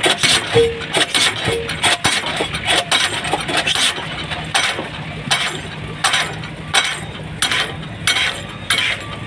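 Diesel pile hammer driving a 500 mm round precast concrete pile: sharp metallic blows at about one and a half a second, each ringing briefly, over a steady low hum.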